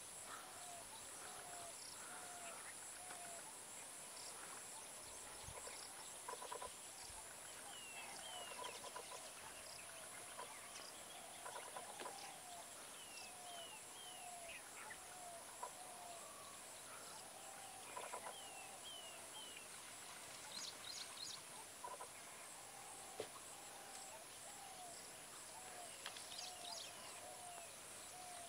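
Quiet natural ambience: birds calling in runs of short, falling notes, several a second, over a steady high-pitched insect drone.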